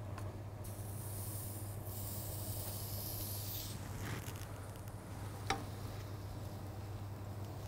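A hiss of something being rubbed over a hot ridged grill pan, lasting about three seconds. About five and a half seconds in there is a single sharp knock as the pan is moved on the hob. A steady low hum runs underneath.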